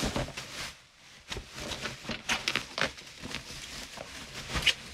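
Plastic packaging being pulled off a box by hand: a black plastic bag and then bubble wrap rustle and crinkle in irregular bursts, with a short lull about a second in.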